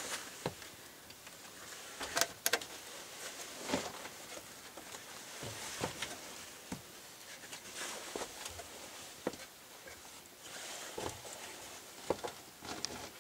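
Irregular, faint knocks and scrapes of people climbing an old wooden mine ladder: boots and hands striking and sliding on the timber rungs, about a dozen sharper knocks spread through.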